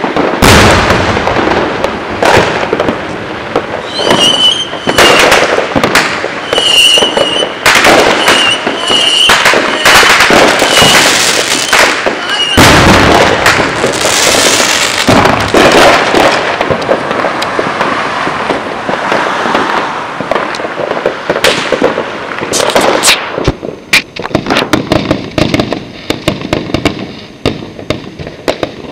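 Aerial fireworks going off in a continuous barrage of loud, overlapping bangs. Several short high whistles sound between the bangs in the first half, and the last third turns to quick, thin crackling pops.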